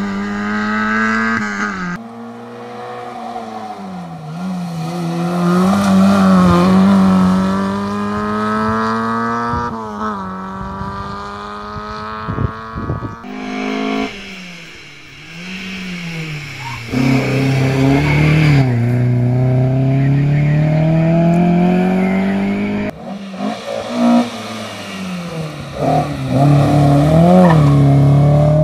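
Historic rally cars driven hard through hairpin bends. An Autobianchi A112 Abarth's small four-cylinder engine revs up and falls back through gear changes, then after a cut about thirteen seconds in, a Volvo 142 S's four-cylinder engine approaches and passes with the revs rising and dropping. A few sharp clicks come just before the cut.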